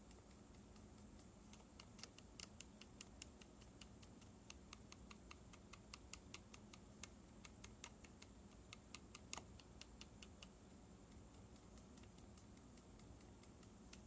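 Keys fitted with MX Zilent silent mechanical switches tapped lightly, a long run of faint ticks, several a second, with one sharper tick about two-thirds of the way through. The clicks stop a few seconds before the end. The tick is the slight noise that some of these switches make, which the owner puts down to play in the stem letting it hit the side of the housing.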